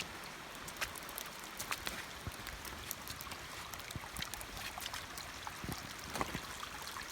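Steady rain, with many separate drops ticking close by over a constant wash of running water.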